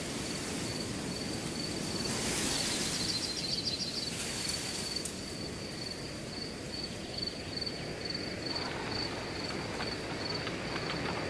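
Outdoor ambience of steadily splashing water with a continuous high, evenly pulsing insect trill, and a short rapid run of chirps about three seconds in.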